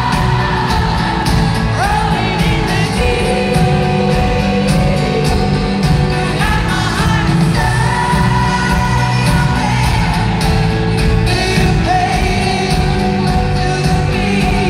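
Live pop music played through an arena's PA: a female singer holding long sung lines over a full band with a heavy low end, loud and steady, heard from high in the arena stands.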